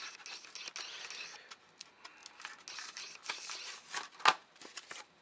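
Clear plastic blister packaging on a card backing crinkling and clicking as it is opened by hand and a phone case is pulled out of it, with one sharp snap about four seconds in.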